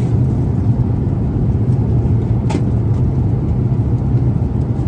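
Steady rumble of an Airbus A380 airliner in flight, heard inside the passenger cabin, with one brief click about halfway through.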